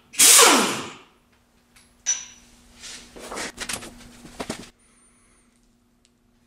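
Pneumatic impact wrench running in a short loud burst that falls in pitch as it winds down, spinning a loosened CV axle bolt out of the hub. Then a sharp click about two seconds in, followed by a series of lighter knocks and clicks.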